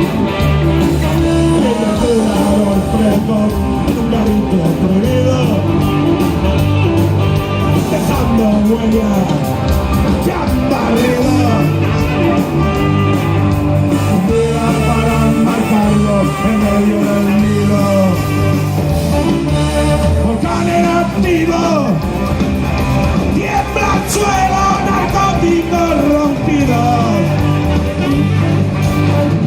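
Loud rock song played by a band, with a singing voice over the instruments.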